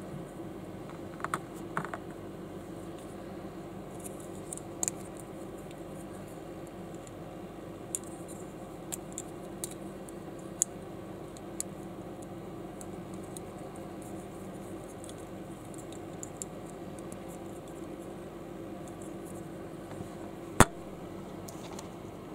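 Small plastic building bricks handled in the fingers: scattered light clicks and scratches of plastic parts over a steady low hum. Near the end comes one sharp, much louder plastic click as the finished model is set down on the studded plastic baseplate.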